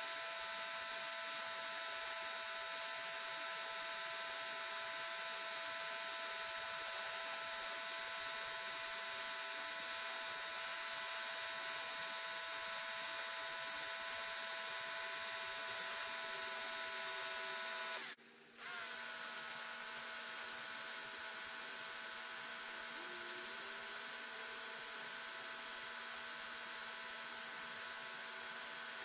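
Portland electric pressure washer running steadily, a whine of several held tones over a hiss of spraying water. It cuts out for about half a second two-thirds of the way through, as the trigger is released, and starts again at a slightly different pitch.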